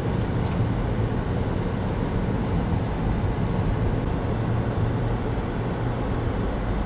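Steady road and engine noise heard from inside a moving vehicle: a continuous low hum with tyre noise from the road.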